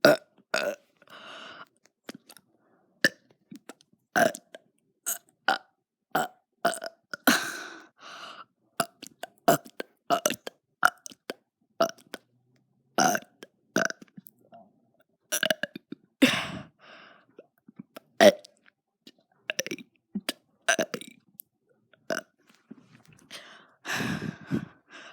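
A person burping the alphabet: a long string of short, separate burps, each shaped into a letter, with brief silent gaps between them and a few drawn-out longer burps.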